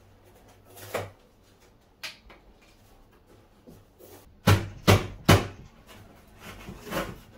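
Cardboard packing being worked off a mountain bike's front fork: scraping and handling noises, with three loud knocks in quick succession about four and a half seconds in and a couple more near the end.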